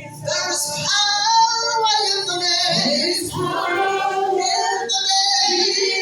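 A woman singing a slow gospel worship song with musical accompaniment, drawing out long notes that waver in pitch.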